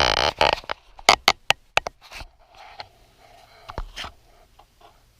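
Small engine bolts and parts being handled on a workbench: a short burst of rustling, then a quick run of about five sharp clicks, and two more clicks later.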